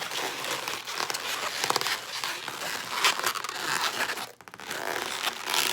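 Latex 260 balloon being twisted into a bubble and pinch twist, squeaking and rubbing against itself in irregular bursts, with a short pause about four seconds in.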